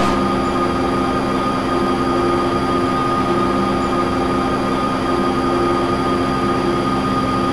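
Electronic sonification drone: several steady held tones over a low rumbling noise, one tone swelling and fading in places, generated from sensors tracking the dancers' movements.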